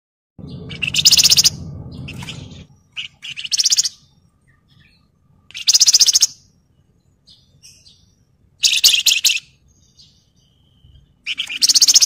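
Wergan songbird singing in five short, high, rapid phrases a couple of seconds apart, with a low rumble under the first.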